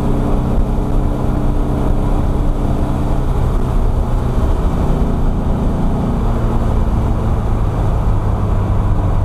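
1964 VW Beetle's air-cooled flat-four engine running on the road, heard from inside the cabin with tyre and road noise. The engine note drops partway through and settles lower.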